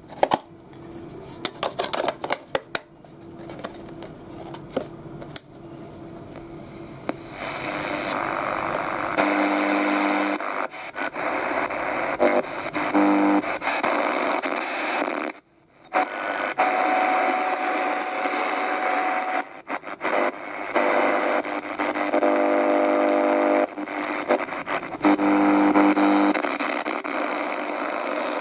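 Batteries being seated in a portable radio's plastic battery compartment with clicks and knocks. Then the Souness SNI-F100 radio comes on about nine seconds in and is tuned across the AM band: loud hiss and static, broken by short steady tones, brief snatches of stations and a thin whistle as the dial turns. Its weak reception leaves mostly static between stations.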